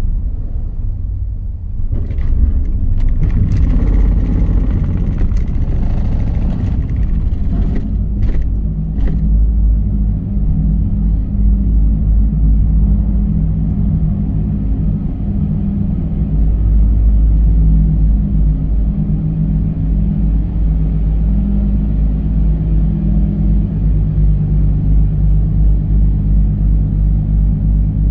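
Daihatsu Wake kei car driving slowly onto a car ferry, heard from inside the cabin: a steady low rumble. For the first several seconds there is extra rattling and a few knocks as it crosses the loading ramp. After that the rumble is steady and pulses evenly.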